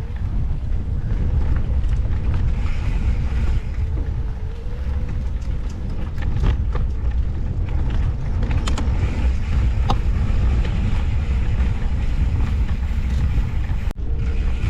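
Riding noise from an off-road handcycle on a dirt singletrack: a steady low rumble of wind buffeting the microphone and the bike rolling over the trail, with scattered clicks and crackles from the tyres and frame.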